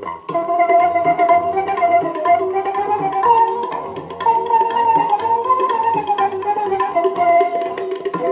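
Sinhala music with a wavering melody over steady accompaniment, played back on an old National Panasonic radio.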